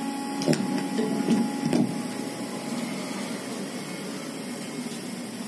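Steady hiss of room and recording noise, with a few light knocks and clicks in the first two seconds.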